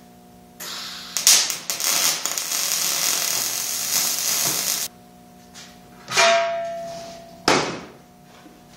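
MIG welding arc crackling and sputtering on a steel chassis frame for about four seconds, with brief breaks in the bead. Then a sharp clank that rings and fades, and a second knock near the end. A faint steady hum sits underneath.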